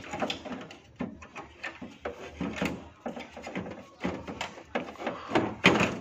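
Black plastic blower wheel of a floor-mount air conditioner being handled into its housing: scattered light plastic knocks, clicks and rattles at an irregular pace, a sharper knock near the end.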